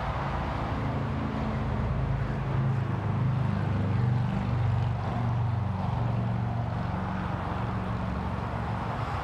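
Low hum of a vehicle engine, getting louder a couple of seconds in and then holding steady, over a wash of outdoor noise.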